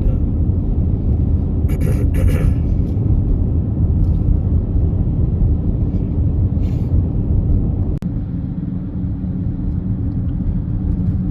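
A steady low rumbling drone, like a running vehicle engine, with a brief dropout about eight seconds in.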